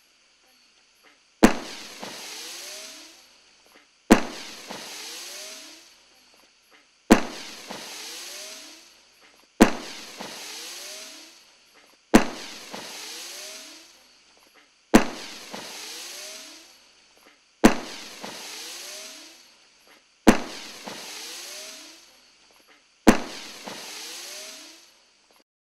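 Firework bouquet tube with zingers firing: nine sharp bangs about every two and a half to three seconds. Each bang is followed by a couple of seconds of hissing and rising whistles from the zingers, then fades out.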